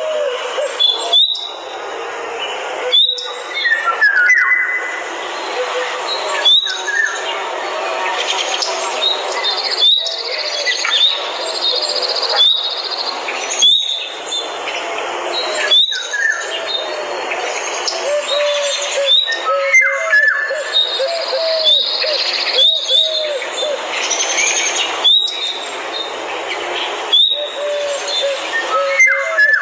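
Forest bird chorus: many birds chirping and calling at once, with sharp high chirps and repeated lower, curving whistled notes over a steady hiss.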